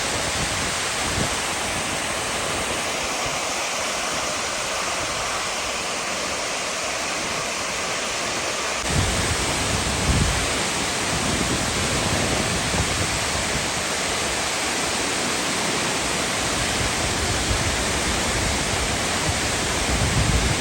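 Steady rushing roar of a large waterfall. The sound shifts about nine seconds in and is fuller in the low end after that.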